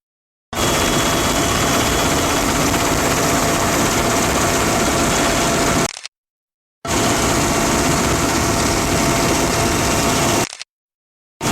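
Helicopter engine and rotor noise: a loud, steady drone with a faint, constant high whine. It cuts out completely for under a second about six seconds in and again near the end, then resumes unchanged.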